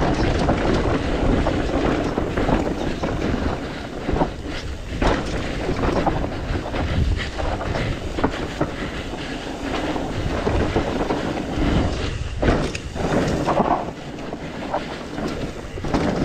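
Electric mountain bike descending a dirt trail: wind buffeting the microphone over the hiss of tyres on dirt, with the bike clattering and knocking over bumps now and then.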